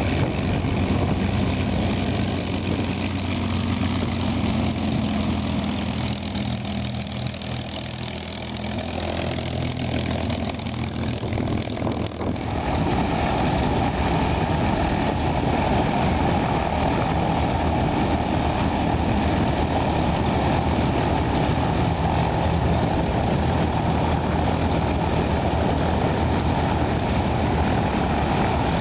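Piston engines of propeller aircraft taxiing. First comes a large four-bladed warbird's engine running with a steady low hum, dipping a little partway through. After an abrupt cut about twelve seconds in, a denser, steadier engine noise follows from a line of light aircraft taxiing with their propellers turning.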